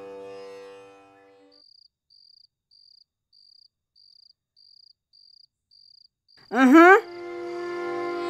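Background music fades out, leaving a faint cricket chirping about twice a second in near quiet. Near the end the music returns with a loud, sharply rising note and a sustained drone.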